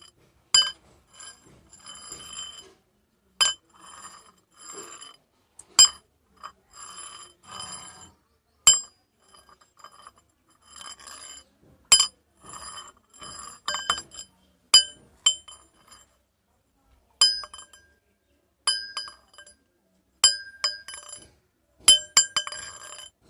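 Metal rods struck and clinked together at an irregular pace. Each hit rings on with several high, bell-like tones, and softer scraping and rubbing of metal fills the gaps between hits. There is a short pause about two-thirds of the way through.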